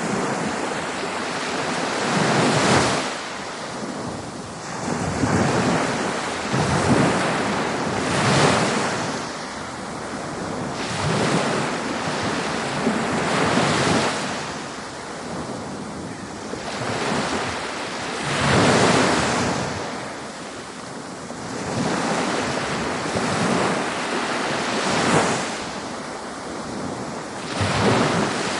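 Ocean surf breaking on a beach: a continuous wash of water that swells with each breaking wave, every few seconds.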